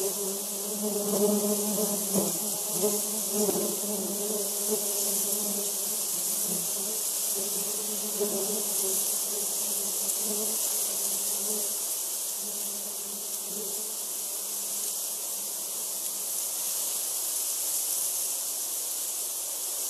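Recorded hum of a honeybee colony: many bees buzzing together in a low, pitched drone over a steady high hiss. The buzzing is fuller in the first several seconds and thins out after that.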